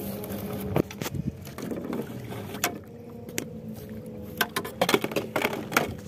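Scattered knocks, clicks and rubbing in a small wooden rowboat as fishing gear and the phone are handled, over a faint steady hum.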